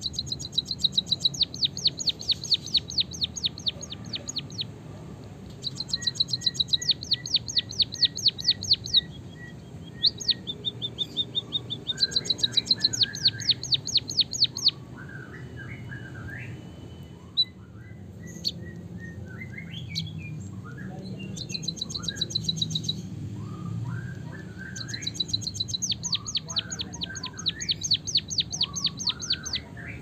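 White-headed munia singing a canary-style rolling song: bursts of rapidly repeated high notes, about seven or eight a second, each burst lasting two to four seconds, with softer twittering chirps between the bursts in the second half.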